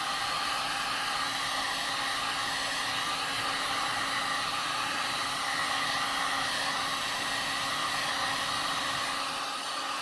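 Hot-air blower running steadily with an even blowing rush and a faint steady hum, heating a phone's plastic back cover to soften its adhesive so the cover can be pried off.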